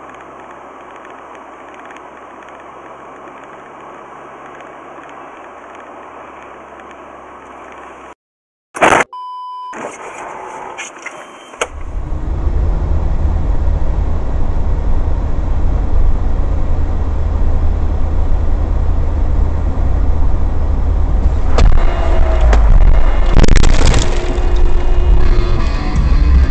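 Dashcam audio from inside a moving car on a snowy road: a steady, fairly quiet hum of road and engine noise. After a short break with a click and a brief tone, a much louder low rumble of tyres and engine on a slushy highway follows. Several sharp loud noises come about two-thirds of the way through.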